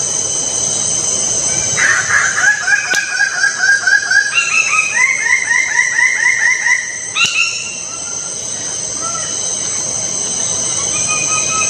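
A bird-of-paradise calls a rapid run of loud, repeated notes, about four a second, for some five seconds; partway through the notes step up in pitch. A steady high drone continues underneath.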